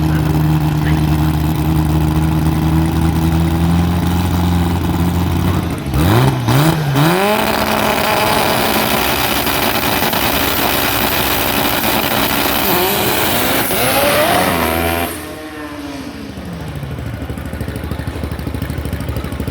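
A drag car's engine held at steady revs on the start line, then launching about six seconds in and revving up through the gears with repeated rising sweeps. About fifteen seconds in it drops off suddenly, and the pitch falls away as the car runs off down the track.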